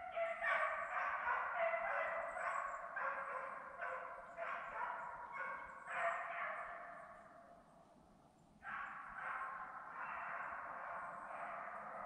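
A pack of deer hounds baying in repeated drawn-out calls as they run a deer on the chase. The calls fade out for about a second about two-thirds of the way in, then pick up again.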